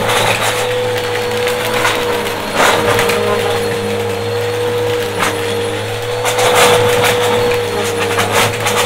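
Upright vacuum cleaner running steadily on a shag rug, with repeated bursts of rattling and crunching as plastic bottle caps are sucked up and clatter through the machine, the loudest a little past two seconds in and again past six seconds.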